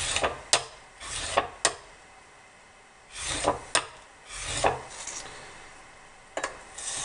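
Steel block plane blade rubbed back and forth on a coarse 120-grit sharpening stone: about four rasping strokes in the first five seconds, some ending in a sharp click, with a last click near the end. This is the rough stone doing the heavy work on a badly pitted edge.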